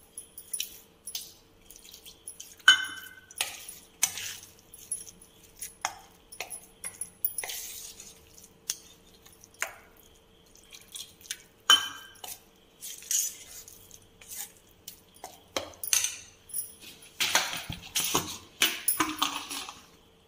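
Steel spoon stirring and scraping thick semolina batter in a stainless-steel bowl, with irregular metallic clinks and scrapes as water is worked in. The stirring gets denser and more continuous near the end.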